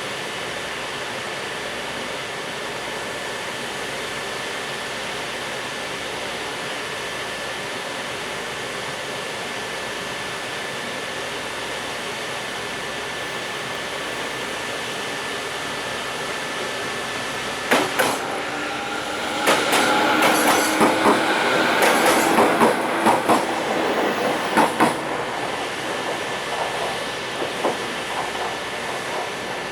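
Container freight train hauled by an EF510 electric locomotive rolling slowly out of the station: a steady running rumble, then a sharp knock about 18 s in and several seconds of loud wheel clatter over rail joints and points, with squealing tones, before it eases off.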